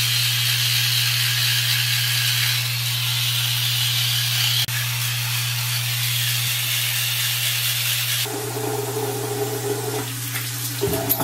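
A child's teeth being brushed, a steady scrubbing hiss. About eight seconds in it changes to water running from the bathroom tap. A steady low hum runs underneath throughout.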